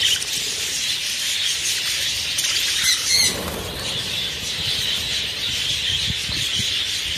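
A large flock of budgerigars chattering and warbling without a break, with a louder flurry of wing beats about three seconds in as many birds fly about.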